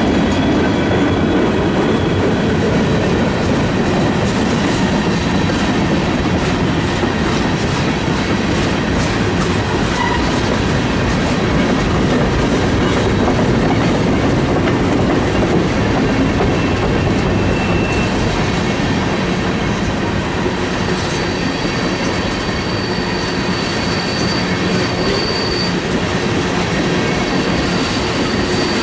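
Train rolling past on the track: a steady, loud rumble of wheels on rail, with faint high wheel squeals coming and going over it.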